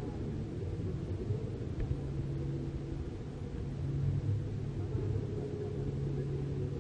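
Steady low rumble of background noise in a large hall, with a faint low hum running through it.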